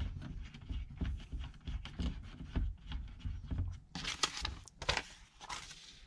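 Plastic fittings of a metal detector being handled and worked together by hand at the coil bracket: a run of small clicks and scrapes, with a cluster of louder rustles and scrapes about four seconds in.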